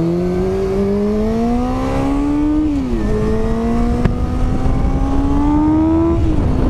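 Motorcycle engine accelerating through the gears, its pitch climbing steadily, dropping sharply at an upshift about three seconds in, climbing again and dropping at a second upshift near the end. A single sharp click sounds about four seconds in.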